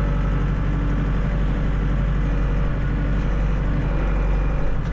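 Kubota MX6000 tractor's diesel engine running steadily at idle.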